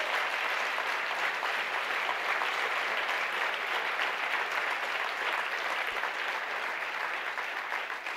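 Audience applauding steadily, a dense sustained patter of many hands clapping.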